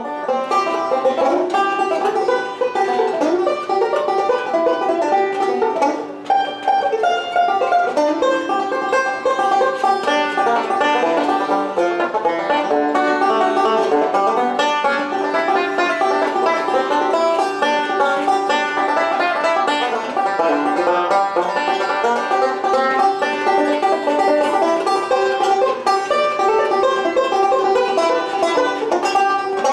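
Banjo music: a continuous run of quick picked notes.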